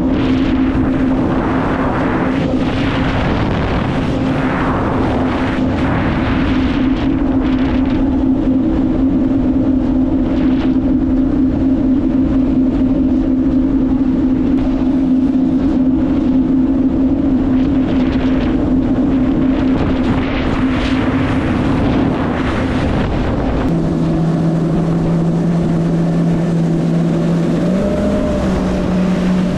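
Yamaha WaveRunner four-stroke personal watercraft engine running steadily at speed, with wind on the microphone and the hiss of water. About three-quarters of the way through, the engine drops to a lower steady note, then rises a little near the end.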